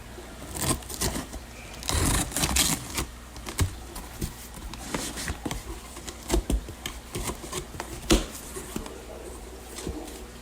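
Packaging of a live-fish shipment being opened and handled: bursts of rustling and crinkling with scattered clicks and knocks.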